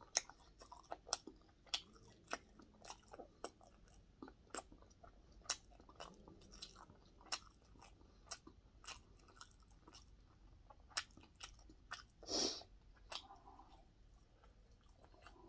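A man chewing a mouthful of fried pork cutlet close to the microphone: faint wet chewing with many small, sharp mouth clicks, and one louder breathy rush about twelve seconds in.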